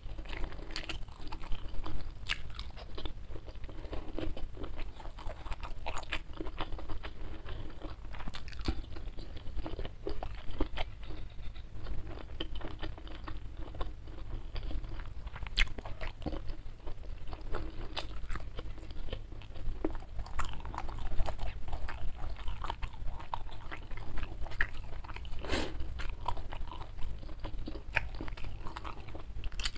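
Close-miked chewing and crunching of fried jengkol: irregular wet mouth clicks and crackles as the food is bitten and chewed.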